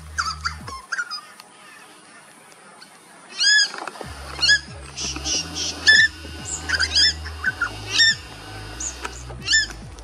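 Purple swamphens giving loud, repeated alarm calls at a predator snake, short calls that rise and fall in pitch, coming about once a second from about three and a half seconds in, over background music.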